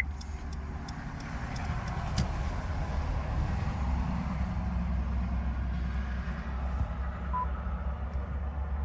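Steady low rumble of a motor vehicle, with a faint hiss over it and a few light clicks early on; a very faint short beep sounds near the end.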